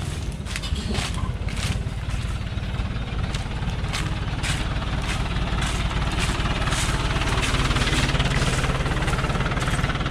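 Diesel engine of a loaded Chiến Thắng light truck running close by at low speed, with a steady low pulsing throughout. Sharp snaps and cracks come at scattered moments over it.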